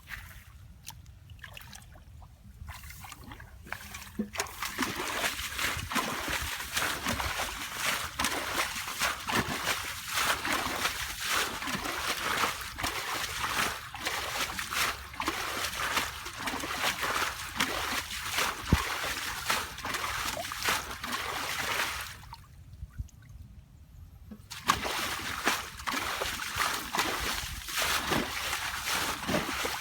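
Shallow water splashing and sloshing in quick, irregular strokes, broken by a pause of about two seconds near the end.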